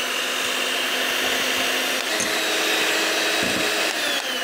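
Electric hand mixer running steadily at medium-high speed, its wire beaters whipping egg whites into meringue in a glass bowl. The motor's hum shifts slightly in pitch about two seconds in.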